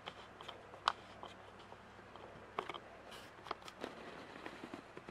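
Faint handling noise: a few scattered small clicks and rustles as the camera is moved in close to the loom.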